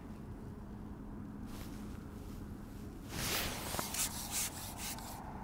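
A carbon fishing pole being shipped back after a roach is hooked: a scratchy rubbing of the pole sliding back, starting about three seconds in, over a steady low hum.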